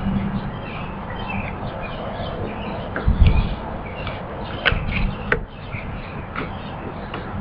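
Hands pressing and patting play dough flat on a plastic placemat, with a dull thump about three seconds in and two sharp clicks a little later.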